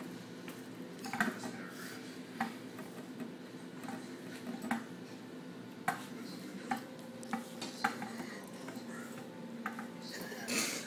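Scattered sharp clicks and light knocks from a table under two straining arm wrestlers, over a steady low hum. A short noisy burst comes near the end.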